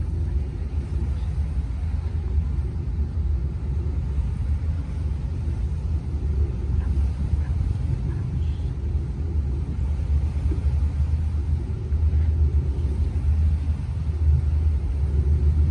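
Steady low rumble of a motor yacht under way, getting a little louder near the end.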